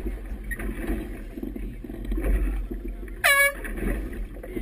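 One short air-horn blast, about a third of a second long, about three seconds in: a race committee finish signal as a sailboat crosses the line. Wind buffets the microphone and water slaps the hull throughout.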